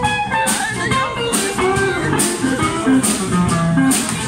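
Small live band playing: acoustic guitar and bass guitar over drums, with a cymbal struck on a steady beat about once a second.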